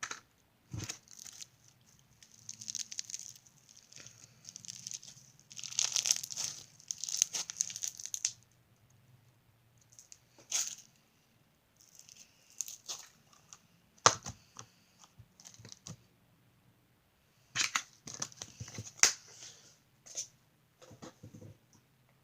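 Hands squishing, stretching and poking popcorn slime: irregular crackly, crinkly bursts broken by sharp clicks and pops, with short quiet gaps between handfuls.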